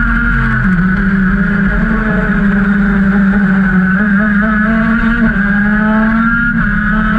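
KZ kart's 125cc two-stroke gearbox engine running at racing speed, heard onboard. Its note drops a little under a second in, then climbs slowly back up over the next few seconds.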